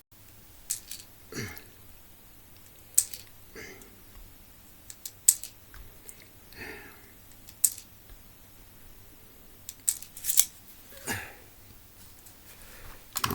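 Sharp mechanical clicks from a cheap BB pistol's mechanism as it is handled and worked: about six clicks, spaced a couple of seconds apart.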